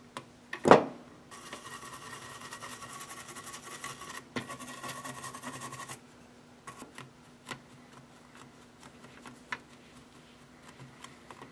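A knock on the workbench, then about four and a half seconds of steady hissing as the circuit board is scrubbed clean after soldering. After that come a few light clicks and soft rubbing as the board is wiped with a tissue.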